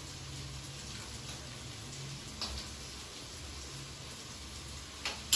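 Quiet kitchen room tone: a low steady hum with faint hiss, a faint click partway through, and two sharp clicks close together near the end.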